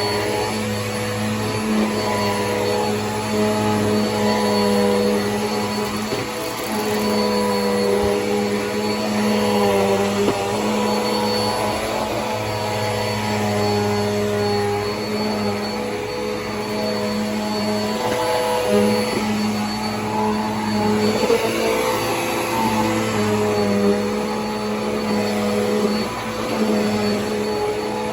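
Bissell PowerForce Helix upright vacuum cleaner running steadily. Its motor hum wavers slightly in pitch every couple of seconds.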